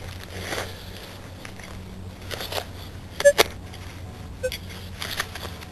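Digging in soil: a digger or trowel crunching and scraping into the dirt in a handful of short strokes, the loudest a little past halfway. Two brief beeps from the Minelab E-Trac metal detector come in the second half.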